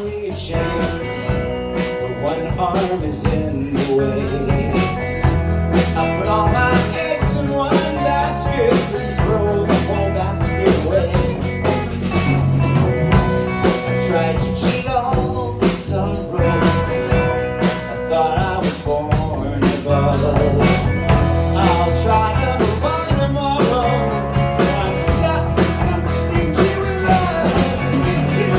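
Rock band playing live, with guitar and drum kit, in a passage without transcribed lyrics.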